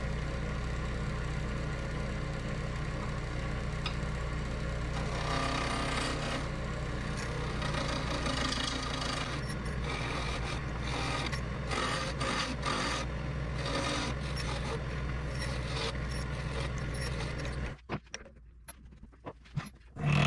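Wood lathe running steadily while a hand turning tool scrapes and cuts a groove, sized for a brass band, into a spinning black walnut and epoxy duck call blank. The lathe shuts off a few seconds before the end, and a single sharp hammer tap follows as the brass band is driven onto the call.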